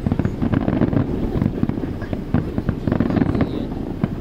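Aerial fireworks display: a dense, continuous run of booms and sharp crackles, many bursts a second.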